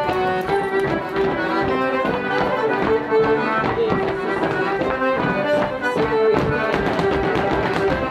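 Lively traditional folk dance tune, led by accordion with fiddle, played for a rapper sword dance, with quick percussive taps from the dancers' stepping running through it.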